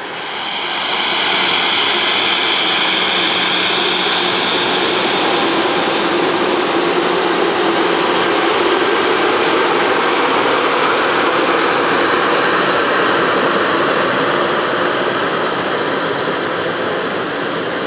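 Embraer regional jet's twin turbofans running as it taxis and turns close by. A loud, steady jet rush with a high whine that swells about a second in; the whine fades after a few seconds.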